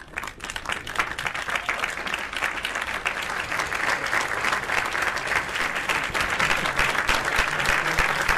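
Audience applauding steadily in an auditorium, with people on stage clapping along. The applause starts abruptly.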